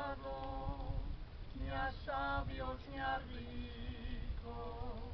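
A person singing in drawn-out phrases, some notes held with a wavering vibrato, over a low rumble.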